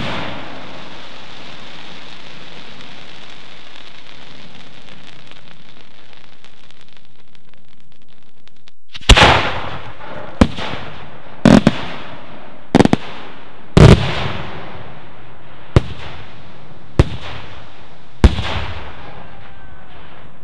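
Large cylinder firework shells bursting. First a dense crackle from a shell's burst fades out over about eight seconds. Then about ten sharp, loud salute bangs follow, some in quick pairs, each with a short echo.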